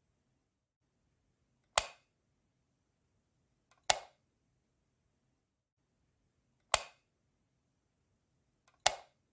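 A light switch clicking four times as an incandescent bulb is turned on and off, each click sharp and short, a couple of them with a faint tick just before.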